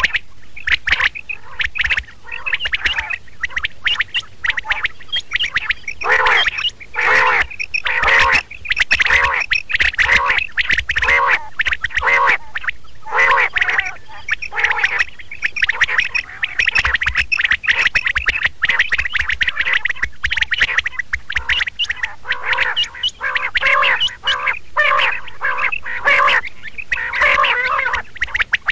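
Quail calling over and over, short harsh calls packed closely together, as in a recorded quail lure call.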